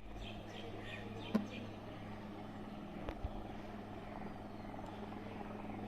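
A steady low motor hum, with a sharp click about a second and a half in and a few faint high chirps near the start.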